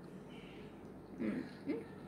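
A person's two short low murmurs, about a second in and again near the end, against quiet room tone.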